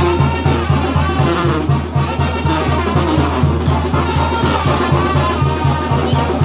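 Loud brass-led dance music with drums over a steady bass beat.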